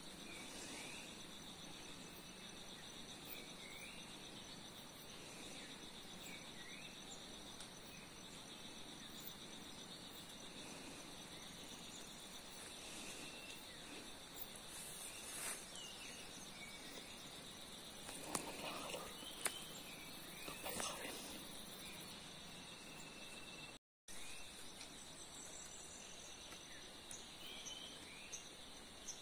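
Forest ambience: insects buzz steadily at a high pitch, with scattered short bird chirps. A few soft rustles and knocks come about two-thirds of the way through.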